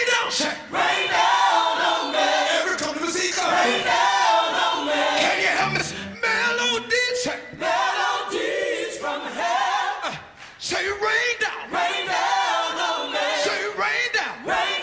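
Gospel song sung by a group of male voices in harmony, with instrumental backing.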